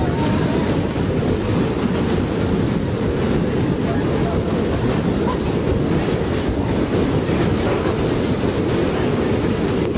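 Steady, loud rumble of rushing floodwater, an even low roar with no breaks.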